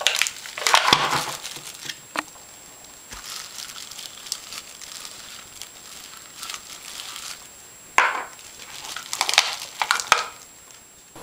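Plastic sandwich bag crinkling and rustling over a hand as it presses soft toilet bowl wax into a film canister, in irregular bursts, loudest near the start and again from about eight seconds in.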